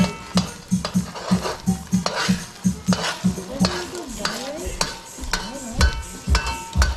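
A metal ladle scrapes and stirs eggs frying in a metal wok, with a light sizzle and clinks of metal on metal. Background music with a steady beat plays under it.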